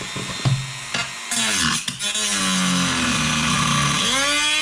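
Electric power tool cutting into wood. The motor starts about a second in, its pitch sags as it bites into the cut, then dips and climbs again near the end. The cut is scorching the wood.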